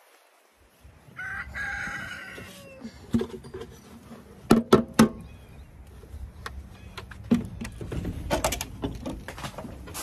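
A rooster crows once, about a second in, for about a second and a half. Near the middle come three sharp knocks in quick succession, the loudest sounds, followed by scattered clicks and rustling.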